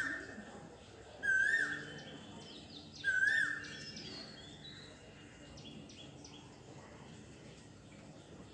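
Asian koel calling: three loud, rising whistled calls about a second and a half apart in the first four seconds, followed by fainter high bird chirps.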